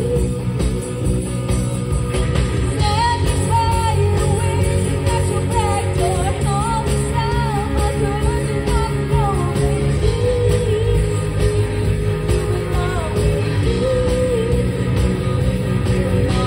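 Live band playing a pop-rock song: female singing over electric guitars and a drum kit, amplified through PA speakers.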